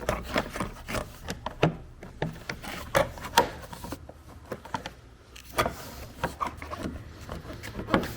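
A plastic interior trim piece being trimmed and fitted by hand: irregular clicks, knocks and scraping, with a short lull about four to five seconds in.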